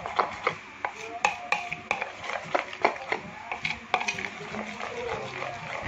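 Batter being stirred in a clear plastic bowl, with irregular clicks and scrapes of the utensil against the bowl as orange food colouring is mixed in.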